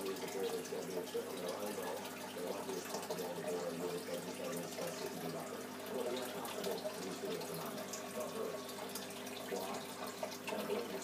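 Steady trickling and bubbling of aquarium water, with a faint low hum underneath.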